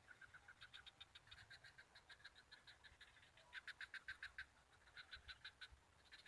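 Faint frog chorus: repeated trains of quick, evenly spaced clicking notes, about seven a second, in bursts with short pauses, loudest about halfway through.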